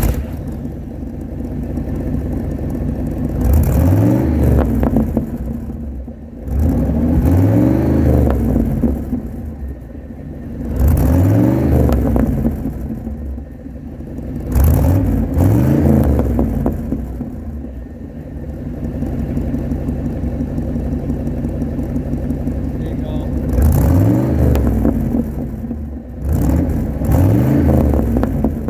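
1971 Chevy C10's 350 small-block V8 breathing through true dual glasspack mufflers, idling and revved about six times, each rev rising and dropping back to idle. It crackles and pops as it comes off the throttle.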